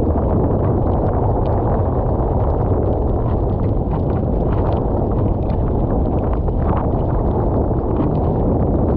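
Strong wind buffeting the microphone in a loud, steady rumble, over the rush of rough sea water.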